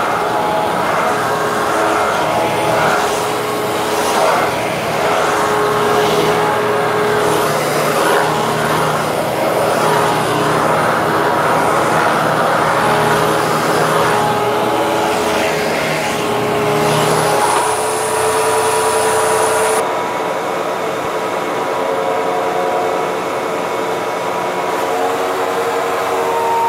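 Hoover Twin Chamber vacuum cleaner running while vacuuming: a steady motor whine with several held tones over a rushing hiss of air. About two-thirds of the way through, the highest hiss drops away while the motor tones carry on.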